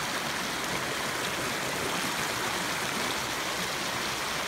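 Shallow, rocky creek running over stones, a steady rush of water.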